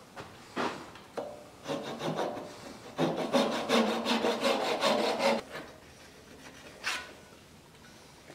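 Small brass-backed hand saw cutting through oak, sawing the turned barrel off its waste block. A few single strokes come first, then a fast even run of strokes about three seconds in that lasts some two seconds, and one last stroke near the end.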